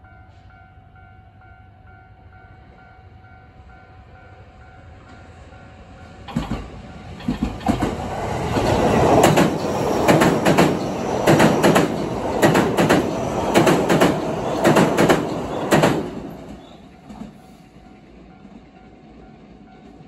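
Level-crossing warning bell ringing with a steady repeating tone, then about six seconds in a passenger train runs past at speed, its wheels clacking over the rail joints for about ten seconds and drowning out the bell. The bell is heard again as the train fades away near the end.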